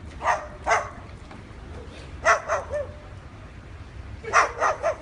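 Short, high bark-like yaps in groups of two or three: two about half a second in, three just after two seconds, and three more near the end.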